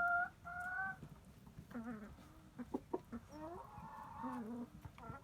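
Chickens calling: a long, held call ends about a second in, then wavering clucking calls follow.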